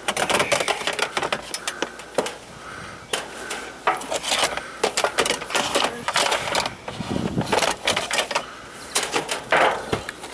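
Cordless drill driving screws through an aluminium mounting bracket into a steel roof, with rapid clicking and metallic clatter in spurts.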